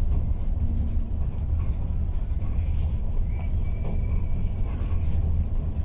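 MAN Lion's City Ü bus driving along, heard from inside the passenger cabin: a steady, loud low rumble of engine and road noise.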